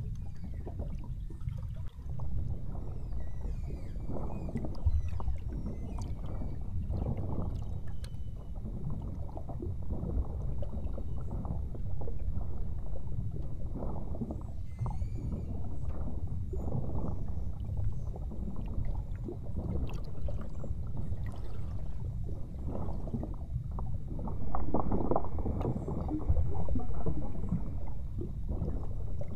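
Underwater sound: a steady low rumble and sloshing of water moving past the boat-mounted hydrophone, with faint beluga whale whistles and chirps sliding up and down, scattered clicks, and a held whistle near the end.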